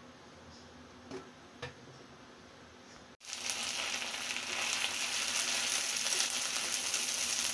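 Garlic paste sizzling in hot oil in a wok as a spoon stirs it, starting abruptly about three seconds in with a loud, steady hiss. Before it there is only a faint background with two light clicks.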